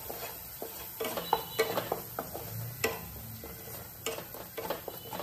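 Wooden spatula scraping and knocking against a non-stick kadai as thick mustard paste is stirred and spread while it fries in oil. It comes as irregular short scrapes and taps.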